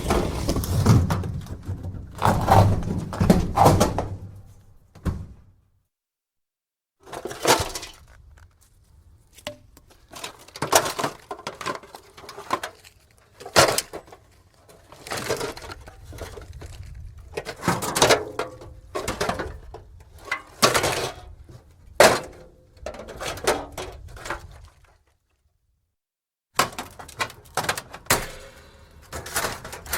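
Thin scrap metal and metal junk being moved and shaken, clattering and scraping in irregular bursts of knocks. The sound stops dead twice, for a second or two each time.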